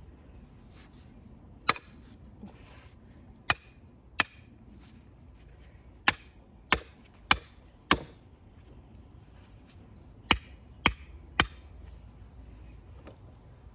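A hammer striking a steel rebar J-hook to drive it into the ground: about ten sharp, ringing metal strikes in uneven runs of two to four, with pauses between.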